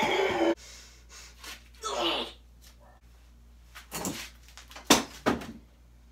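A man's loud, held vocal sound cuts off about half a second in. A short breathy noise follows about two seconds in, then two sharp explosive bursts of breath about five seconds in, as in a sneeze.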